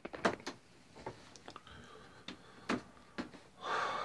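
A few faint, irregularly spaced clicks close to the microphone, with a short hiss near the end.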